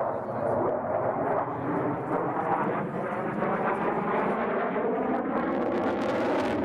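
MiG-29 fighter's twin turbofan engines heard from the ground as the jet flies past and banks away, a steady jet noise that turns brighter and hissier about five seconds in.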